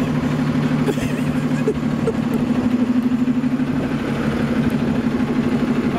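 City transit bus idling while stopped at a red light, a steady low engine drone that does not let up.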